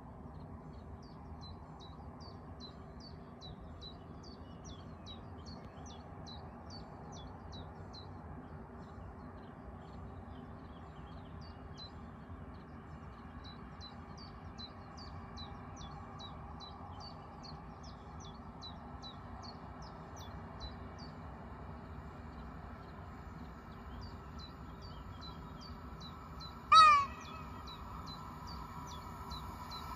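Small birds chirping in short repeated calls over steady outdoor background noise. Near the end, a single short, loud horn blast from an approaching PKP EN57 electric multiple unit is followed by the steady hum of the train drawing near.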